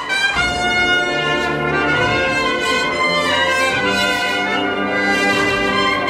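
A Semana Santa agrupación musical, a processional brass band, playing a march: trumpets and trombones hold sustained chords.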